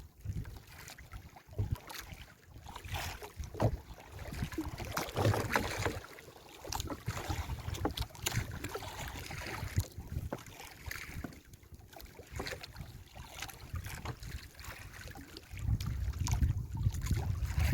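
Wind gusting on the microphone, with water sloshing and splashing against a small fishing boat on a rough sea and scattered knocks. The wind rumble builds strongly near the end.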